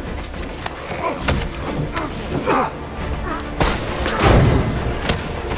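Designed fight sound effects: a string of punch and body-impact hits, the heaviest about four seconds in, with short grunts between them, over dramatic background music.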